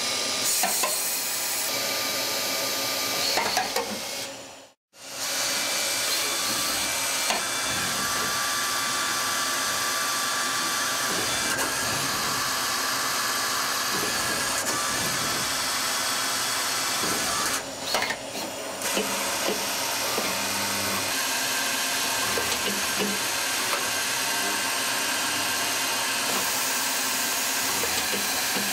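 Citizen Cincom M16VIII Swiss-type CNC lathe running: a steady whirring with several high, held tones. The sound cuts out briefly about five seconds in and dips for a moment near the eighteen-second mark.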